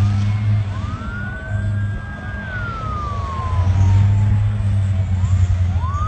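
Emergency vehicle siren wailing: the pitch rises, holds briefly, falls slowly, and starts rising again near the end, over a steady low rumble.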